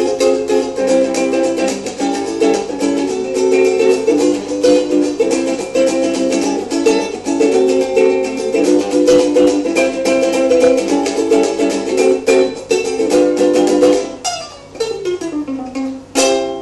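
Ukulele strummed in a quick, steady rhythm, improvising through chords. About two seconds before the end the strumming stops, a note slides down in pitch, and a single last strum follows.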